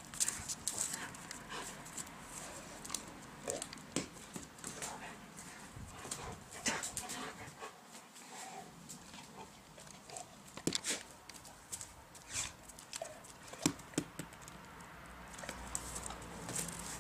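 German shepherd pawing and chasing an apple across brick paving: a run of sharp clicks and scrapes from its claws and the apple knocking on the bricks, with a few short whines.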